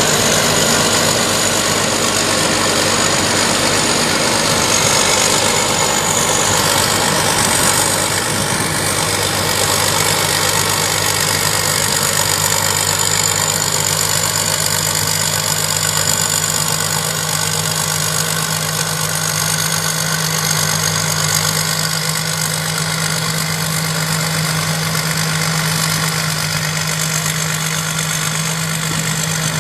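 Thai Charoen Kan Chang combine harvester's engine running steadily, with a constant low hum.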